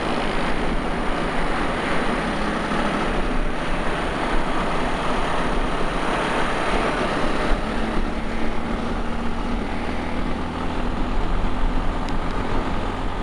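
Honda XRE 300's single-cylinder engine running while the bike is ridden, under heavy wind rush on the microphone. Under it is the slightly annoying engine noise that the rider puts down to an adjustment left a little loose.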